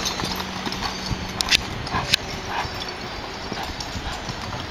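Horses galloping on loose sand, their hoofbeats running together in a steady rumble, with two or three sharp knocks about one and a half to two seconds in.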